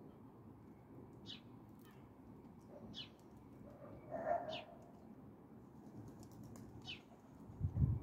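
A small bird giving short, high chirps that fall in pitch, four times, about every one and a half to two seconds. There is a brief louder, lower sound about halfway through and a low thump near the end.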